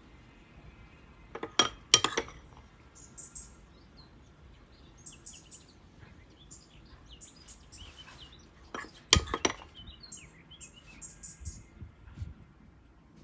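A metal spoon clinks against a glass baking dish while scooping baked pumpkin, in two short clusters of sharp clinks about seven seconds apart. A bird chirps repeatedly in short high calls throughout.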